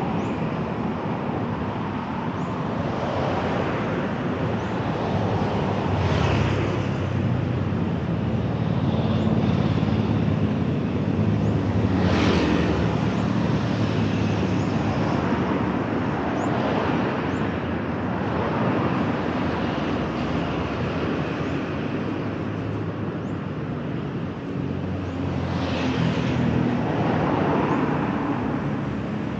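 Steady city road traffic, with engines running and vehicles passing close by now and then, the loudest going by about twelve seconds in.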